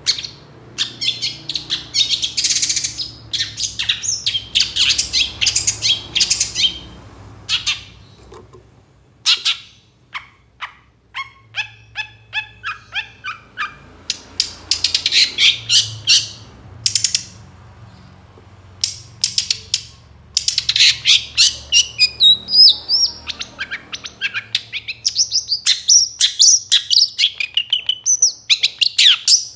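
Long-tailed shrike singing in bursts of harsh, scratchy chatter with short pauses between them, a run of quick, clipped notes about twelve seconds in, and thinner whistled phrases that slide up and down near the end.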